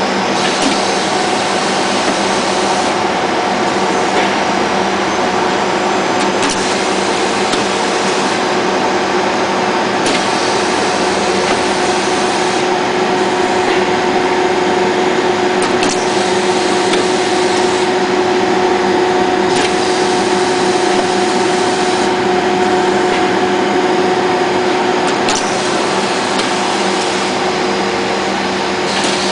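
OMAC leather-belt edge-finishing line running: a steady whirring machine noise with a constant hum, as the strap feeds through the Shuttle unit's belt-driven rollers. A few faint clicks come through now and then.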